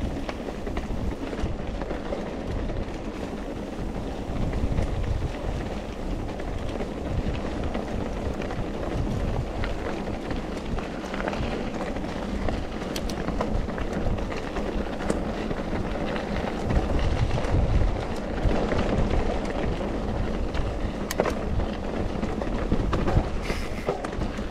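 Mountain bike riding over a dirt and stony trail: the tyres roll and crunch while the bike rattles, with sharp clicks and knocks now and then and a steady low rumble of wind on the handlebar camera's microphone.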